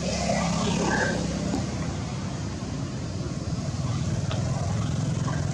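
Steady low drone of a running engine, with a few faint short high sounds about a second in.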